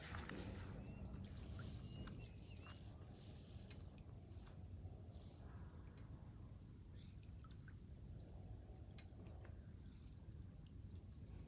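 Quiet outdoor ambience: a low rumble with a steady high-pitched whine over it. A few faint light clicks and rustles come as a nylon cast net is gathered in the hands, ready to throw.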